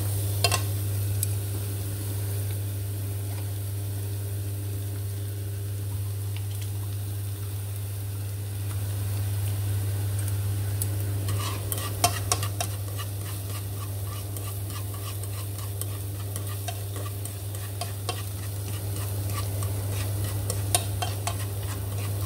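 Minced lemongrass and sliced red chillies sizzling in hot oil in a non-stick frying pan, stir-fried with chopsticks that click and scrape against the pan in a few short clusters. A steady low hum sits beneath the sizzle.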